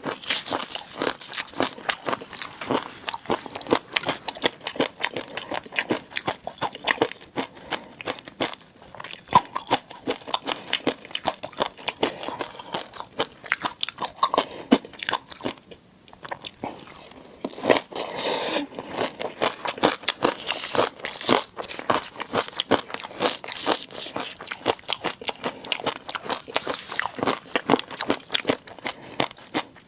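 Close-miked eating of seafood: a dense, irregular run of wet chewing clicks and crunches, several a second, with a short lull about halfway.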